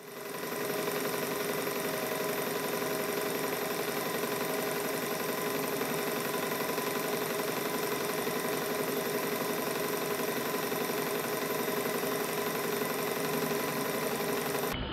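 Model steam engines running steadily on compressed air during a test run of the new steam piping. The sound rises in over the first second, then holds even.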